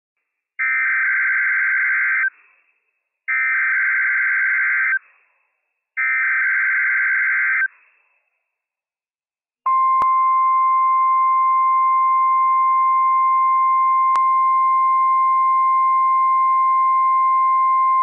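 NOAA Weather Radio Emergency Alert System header: three short bursts of digital data tones, the SAME header sent three times, each about a second and a half long. After a short gap comes the single steady 1050 Hz warning alarm tone, with a brief click about ten seconds in. It marks the start of a Required Monthly Test alert.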